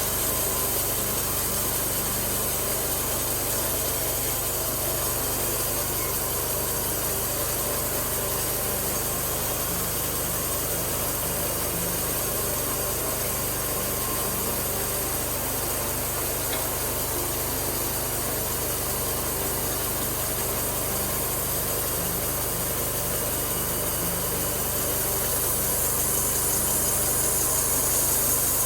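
Homemade sawmill's gasoline engine running steadily, getting a little louder and hissier near the end.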